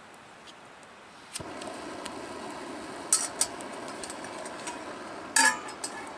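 A backpacking camp stove burner starts up suddenly about a second in and runs with a steady rush, with a metal pot clinking a few times on it.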